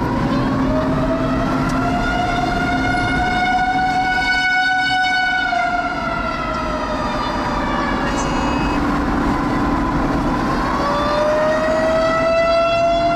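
A siren wailing over the noise of the car driving: one long rising tone that climbs for about five seconds, falls away, then climbs again near the end.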